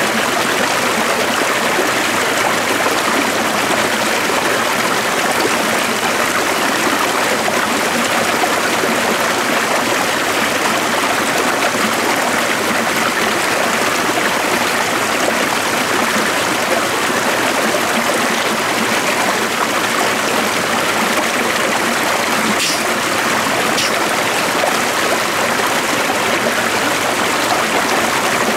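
Stream flowing steadily, an even rush and trickle of running water.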